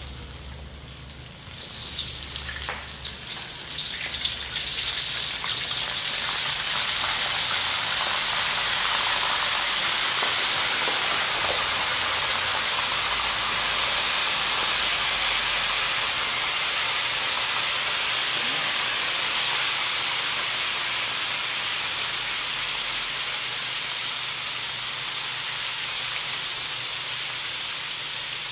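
Flour-coated mud crabs deep-frying in hot oil in a steel wok: a loud sizzle that builds over the first several seconds as the crabs go into the oil, with a few sharp pops, then holds steady.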